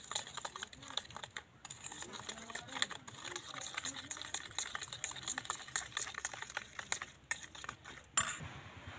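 A metal spoon beating egg and powdered sugar in a stainless steel bowl: a quick, uneven run of clicks and scrapes of the spoon against the bowl.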